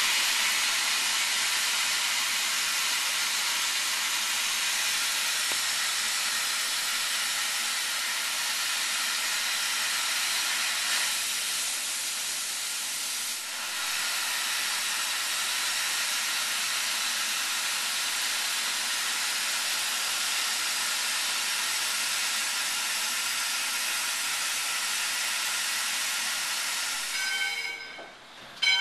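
Valley Railroad No. 40 steam locomotive venting steam with a loud, steady hiss that stops shortly before the end. A bell then rings a few times.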